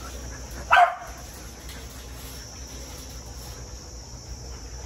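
A dog barks once, about a second in.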